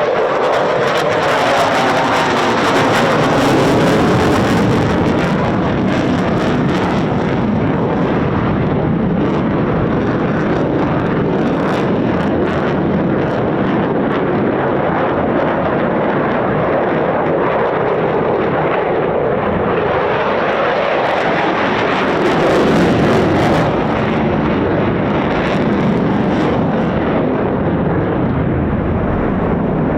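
Eurofighter Typhoon's twin Eurojet EJ200 turbofans in a flying display: loud, steady jet noise that swells a little about twenty-three seconds in.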